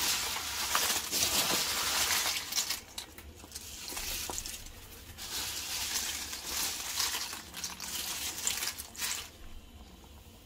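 Crisp fried tortilla chips rustling and crackling as handfuls are scooped off a paper towel and dropped into a pan of green salsa, in repeated bursts, loudest at the start.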